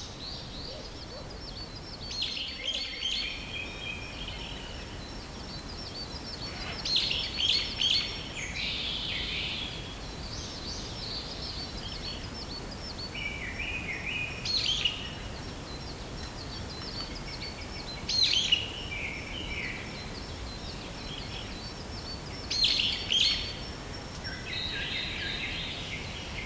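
Birds calling: short chirps and brief song phrases that come every few seconds over a faint steady hiss.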